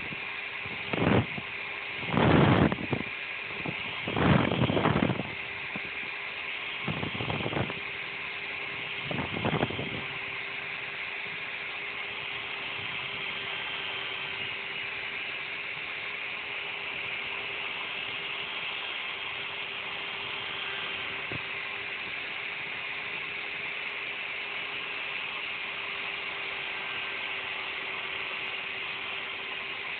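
Electric drill spinning a wire cable inside a motorcycle's metal feed pipe to scour out the blockage inside it. It goes in several short loud bursts over the first ten seconds, then runs steadily with a constant hum.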